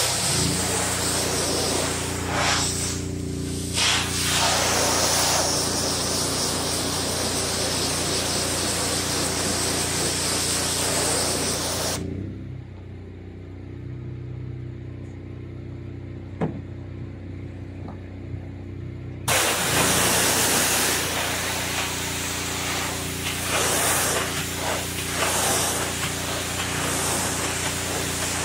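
Water spraying from a hose-fed wand onto solar panels, a steady hiss that cuts off abruptly about twelve seconds in and starts again about seven seconds later. A steady low hum runs underneath throughout.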